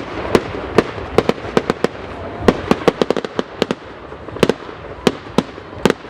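Fireworks display: a rapid, irregular string of sharp bangs from bursting aerial shells over a continuous rumbling crackle, with a quick cluster of bangs in the middle.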